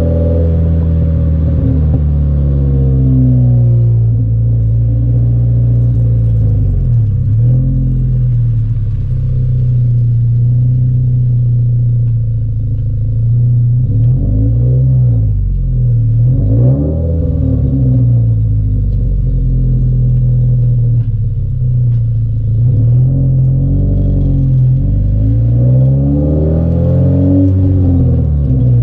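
2022 Subaru BRZ's 2.4-litre flat-four, breathing through a Remark axle-back exhaust, running at a steady cruise while driving, a low drone holding mostly even pitch.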